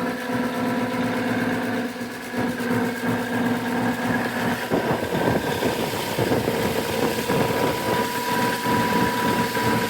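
Brand-new Daikin rooftop HVAC unit running with both compressors on: a steady hum, with a rough, rattling noise coming in about five seconds in. The technician takes the noise for a sign that something is wrong with the new unit.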